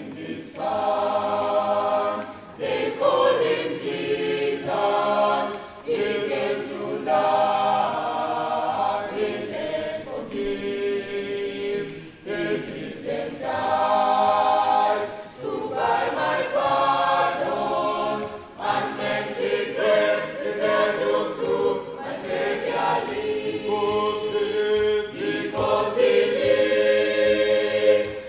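A choir singing, in phrases of a couple of seconds each.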